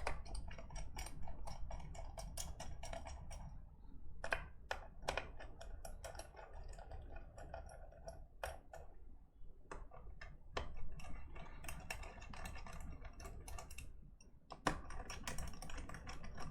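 Screwdriver driving keyboard case screws part-way in: fast runs of small clicks lasting a few seconds each, broken by short pauses as it moves from screw to screw.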